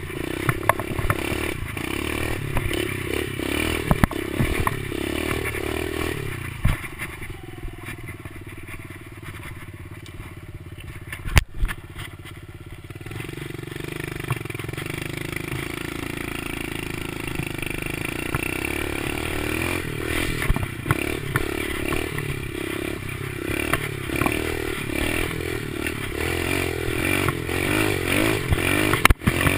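Kawasaki KLX110 pit bike's small single-cylinder four-stroke engine running while the bike is ridden over a dirt trail, with clatter and knocks from the bumps. The engine goes quieter for several seconds about a quarter of the way in, with a sharp knock in the middle of that stretch, then picks up again.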